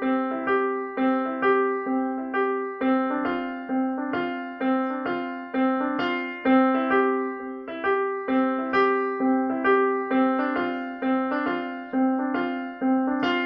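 Solo piano or electric piano playing a gentle repeating pattern of notes, about two a second, over a held low note.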